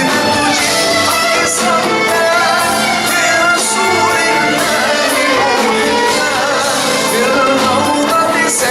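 Music with singing: a sung melody over continuous accompaniment.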